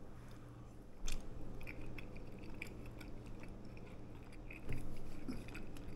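A person chewing a mouthful of juicy chicken, with small wet mouth clicks. There is one sharp click about a second in.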